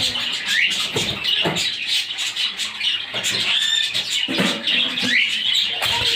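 Pet cockatiels and budgerigars chirping and chattering, with several short rising whistles among a steady twitter.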